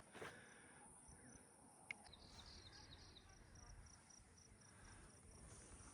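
Faint outdoor quiet with a high-pitched insect chirping in an even rhythm, about five chirps a second, from about two seconds in until near the end; a single faint click just before it starts.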